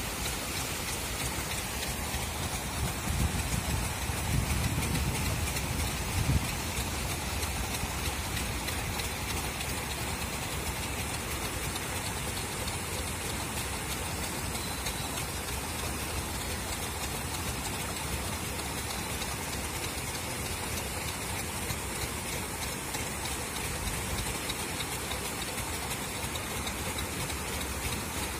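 Paddlewheel aerators on a shrimp pond churning the water, a steady rain-like rush of splashing, with a low rumble swelling briefly a few seconds in.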